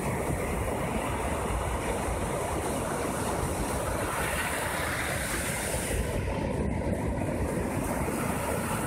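Storm-swollen surf breaking and washing up a sandy beach: a steady rushing noise with a heavy low rumble.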